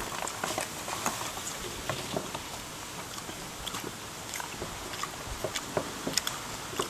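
Dry rice paper sheets crackling and crinkling as they are peeled apart and handled: scattered small clicks over a steady hiss.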